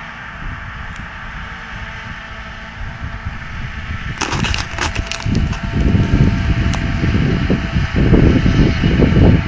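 Tractor-driven corn silage harvesting machinery running with a steady low engine drone. About four seconds in there is a brief burst of clattering, then louder, uneven low rumbling to the end.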